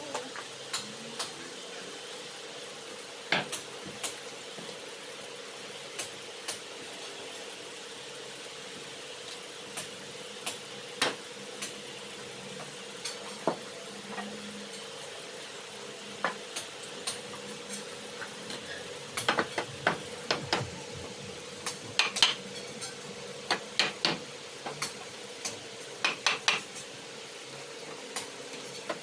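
Irregular light clicks and knocks of hard objects, coming in clusters in the second half, over a steady faint hum.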